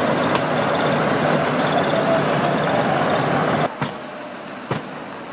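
Pierce fire engine running steadily close by with a low hum. About three and a half seconds in the sound drops suddenly to a quieter background with a few sharp clicks.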